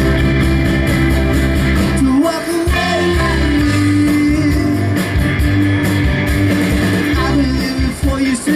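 Live rock band playing: a man sings lead over strummed acoustic guitar, with bass and drums. The vocal line comes in about two seconds in.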